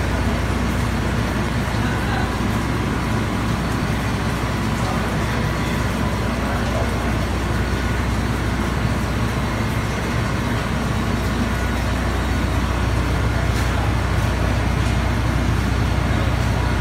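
Steady background rumble with an even hiss, like road traffic, unchanging and with no single event standing out.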